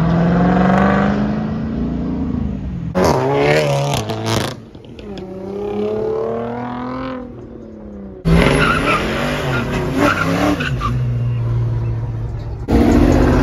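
Several cars accelerating hard past one after another, among them a Hyundai Genesis Coupe. Each engine's pitch rises as it revs up. There are three sudden loud passes a few seconds apart, with a quieter engine pulling away between them.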